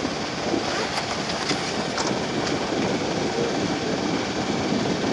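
A yacht's motor running steadily while the boat is under way, mixed with wind noise on the microphone and water washing along the hull.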